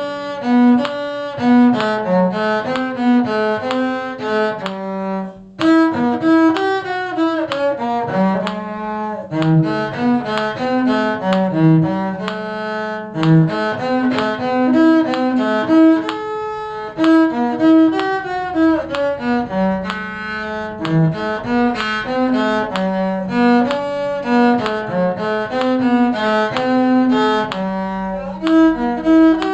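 Bowed string instruments, with the cello most prominent, playing a tune in steady, moving notes. There is a brief break about five seconds in.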